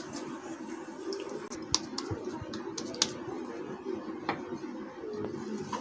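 Hands pressing and patting a soft kabab mixture into patties, with a few sharp clicks about a second apart, over a steady low hum.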